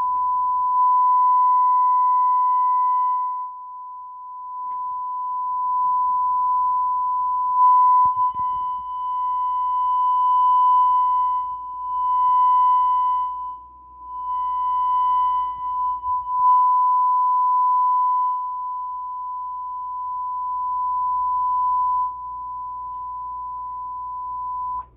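Steady pure test tone played through the Sansui 9090DB receiver during its after-repair bench test. Its loudness dips and swells several times as the front-panel controls are worked, and it cuts off suddenly at the end.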